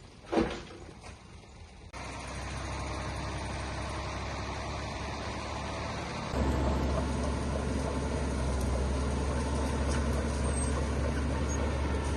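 Heavy diesel engine of construction equipment running steadily, a low rumble that sets in abruptly about two seconds in and jumps louder just after six seconds. A single knock comes first, about half a second in.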